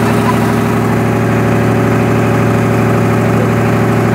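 Riverboat's engine running steadily under way: a constant low drone with no change in speed.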